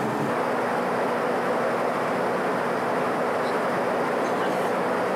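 Steady cabin noise of a small private jet in flight: an even hiss of airflow and engine sound through the fuselage, with a faint low hum underneath.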